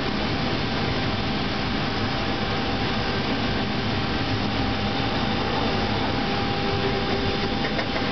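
Inside a TTC ALRV articulated streetcar (UTDC-built) running along the track: steady running noise of the car under way, with a faint steady hum.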